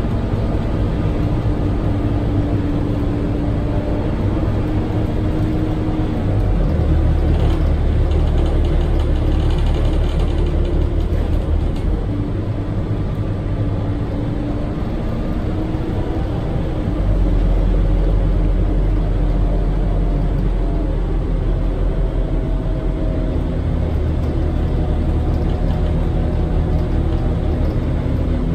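Scania K230UB city bus under way, heard from inside the cabin: the Scania DC9 diesel engine drones with road noise. The low rumble grows louder about seven seconds in and again about seventeen seconds in.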